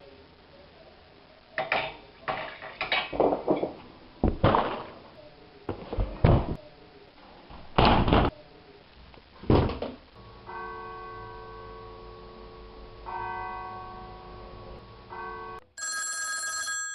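A run of about ten heavy knocks and thumps at uneven spacing. They are followed by steady electronic tones in three stretches, and a brighter, higher tone just before the end.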